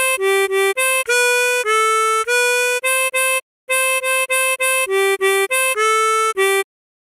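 Tremolo harmonica playing a simple melody of short single notes, about three a second: repeated C5 blow notes dipping to G4, B4 and A4. It breaks off briefly a little past halfway, then stops shortly before the end.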